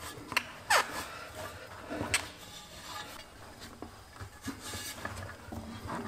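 Rubber inner tube being pushed into a skid steer tire by hand: rubber rubbing and giving short squeaks against the tire and steel rim, with a few light knocks.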